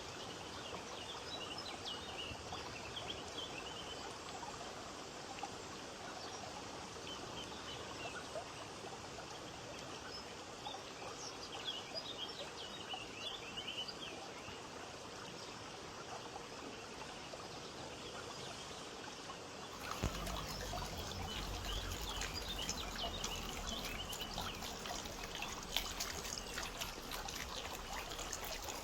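Water trickling and splashing in a homemade cement water fountain. The sound becomes fuller and louder about two-thirds of the way through.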